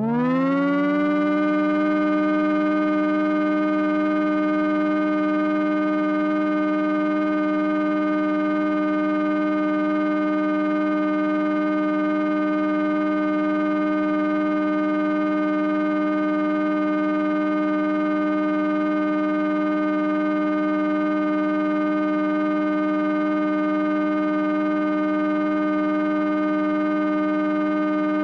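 Synthesized digital tone that slides up in pitch at the onset, then holds as one steady, unchanging electronic drone with many overtones.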